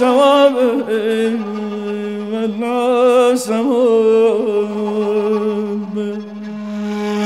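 Male voice singing Persian classical avaz in Dashtestani, with rapid warbling tahrir ornaments and then a long held note. A breathy flute comes in near the end.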